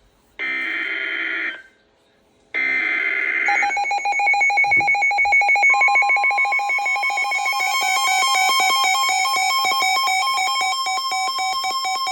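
Emergency Alert System alert from a NOAA Weather Radio broadcast. It opens with two short bursts of screeching SAME header data tones. A rapidly pulsing alert beep follows, and about two seconds later a steady 1050 Hz warning alarm tone joins it.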